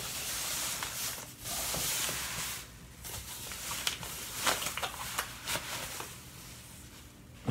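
Packaging rustling and sliding as a cutting machine is worked out of its wrapping: two long stretches of rustling, then a few light knocks and clicks.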